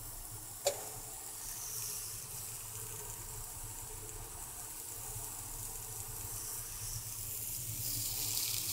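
Oiled cauliflower steaks sizzling softly on a hot grill pan: a steady hiss that swells near the end as another steak goes down, with a single click about a second in.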